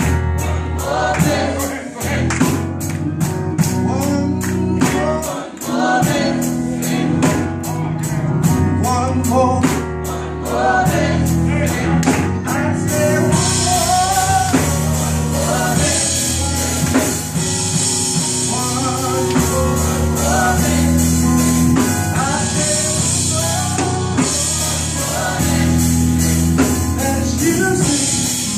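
Gospel choir singing live through the church PA, with male lead voices over the choir and a band keeping a steady beat. The high percussion, cymbals or tambourine, gets markedly brighter and louder about halfway through.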